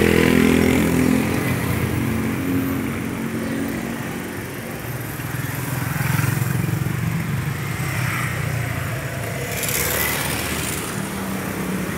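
Toyota Grand Avanza 1.3-litre petrol engine running with the hood open, a continuous low engine hum.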